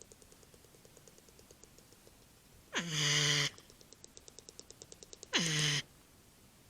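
An animal gives two short, harsh calls about two and a half seconds apart, each sliding quickly down into a steady low pitch. A fast, faint, even ticking sounds around them.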